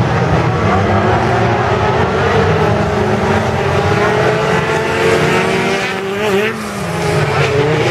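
Several autocross cars racing at high revs, their engine notes overlapping and rising and falling in pitch. The sound dips briefly a little before the end.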